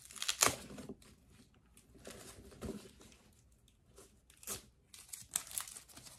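Protective plastic wrapping being pulled and torn off a new handbag's handles: irregular crinkling and tearing, loudest about half a second in, with more bursts in the middle and near the end.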